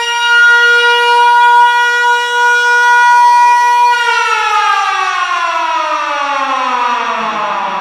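A loud, siren-like wail holds one steady pitch, then winds down in a smooth falling glide from about four seconds in.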